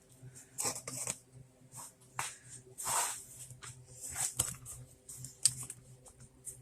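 Hands handling the freshly welded snowblower wheel at the bench: a series of short, irregular scrapes, rustles and light knocks, over a faint steady hum.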